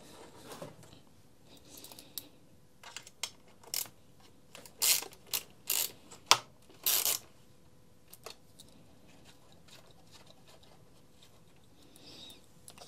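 Small ratchet wrench clicking in short, irregular bursts as it works a screw on a string trimmer's guard clamp, with a few lighter metal taps; the loudest bursts come in the middle.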